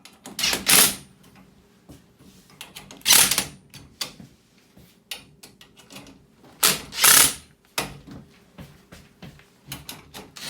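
Nuts being tightened onto the screws of a metal serving cart frame: four short, loud bursts of mechanical rattling about every three seconds, with small clicks and taps of the tool and metal parts between them.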